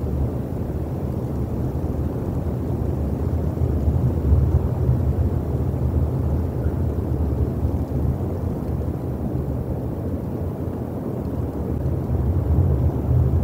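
Steady low rumble of wind buffeting an outdoor nest-camera microphone, rising and falling irregularly in gusts.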